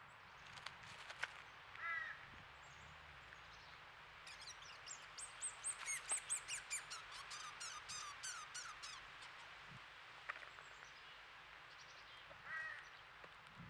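American crows calling: a short caw about two seconds in and another near the end. In the middle comes a rapid run of high, thin chirps, several a second, which is the loudest thing in the stretch. A few sharp clicks sound early on.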